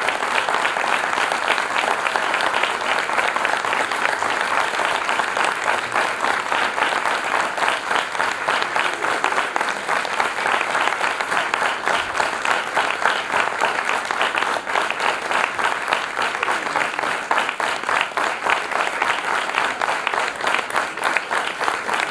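Audience applauding, a dense, steady stream of hand claps.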